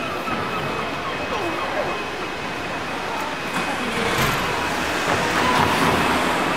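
City street traffic noise: a steady wash of passing cars, growing a little louder about four seconds in.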